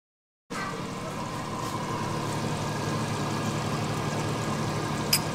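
After half a second of silence, a kitchen range hood fan runs with a steady hum and rush. A single short clink comes about five seconds in, a metal spoon touching a china saucer.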